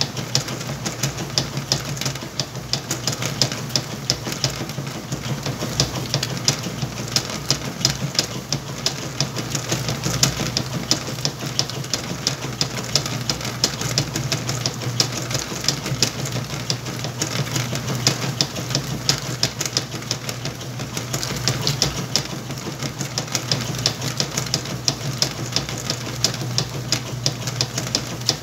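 Whirlpool washing machine running its cycle with a load of towels: a steady motor hum under a rapid, continuous ticking and clattering.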